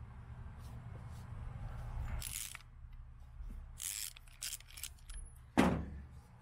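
Ratchet wrench loosening the nut on an Enduro joint's rebuild tool: a few short ratchet clicks, then one loud sharp knock about five and a half seconds in, over a steady low hum.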